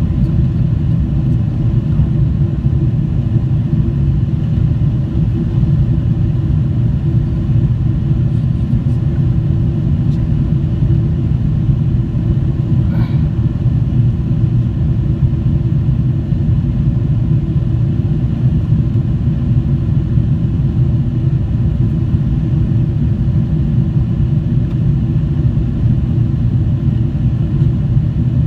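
Boeing 777-300 cabin noise during climb: a steady low rumble of jet engines and airflow, heard from inside the cabin at a window seat.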